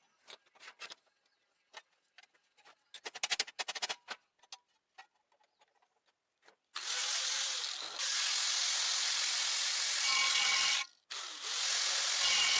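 A few light taps and clicks on metal. About seven seconds in, a handheld power tool starts grinding metal with a loud, steady, high hiss. It cuts out briefly near the end and starts again.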